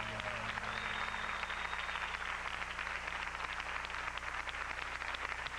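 Studio audience applauding, a dense patter of clapping. About a second in, a thin high whistle-like tone sounds over it for a second or so.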